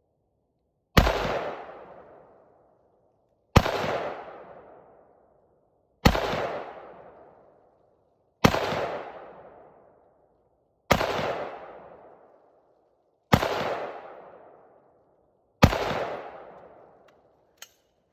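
Rifle fired seven times from a seated position, a shot about every two and a half seconds, each crack followed by a long echoing decay.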